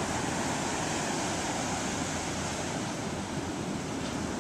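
Steady rush of ocean surf breaking and washing up the beach, mixed with wind noise on the microphone.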